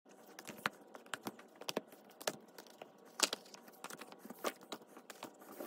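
Irregular light clicks and taps, a few a second, over a faint background hiss.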